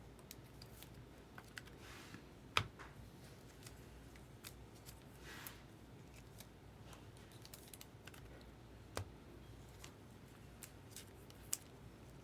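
A trading-card pack and its cards being handled: scattered small clicks and snaps, the sharpest about two and a half seconds in, with a brief soft rustle near the middle.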